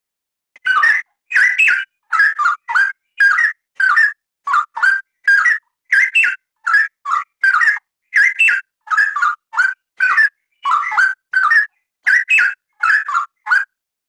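Straw-headed bulbul singing a dense run of short, loud whistled phrases, about two a second with brief gaps, each sweeping up and down in pitch. The song starts about half a second in.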